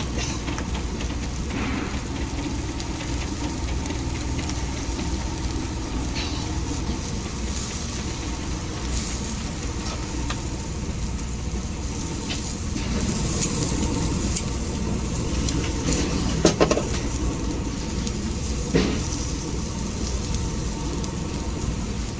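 Chicken skewers sizzling on a direct-flame grill over a steady low rumble, with a few sharp clicks and clatters about two-thirds of the way through.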